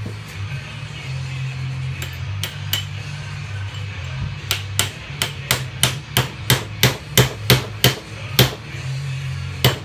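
Hammer striking metal on a Saginaw power steering gearbox, tapping an adjuster round to line up its alignment marks. A few spaced taps come first, then a run of about a dozen sharper blows at about three a second, and one last tap near the end.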